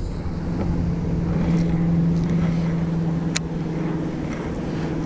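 An engine running steadily with a low, even hum. A single sharp click comes about three and a half seconds in.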